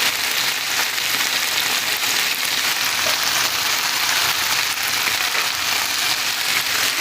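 Carrots and green beans sizzling steadily in hot oil in a big pan as they are sauteed with spices.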